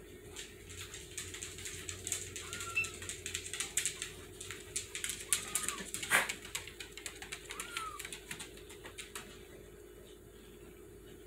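Kittens scrabbling in a blanket-lined plastic storage tote, their claws making a busy patter of small clicks and scratches, with one louder knock about six seconds in. Three faint, short cat calls come through among the clicks.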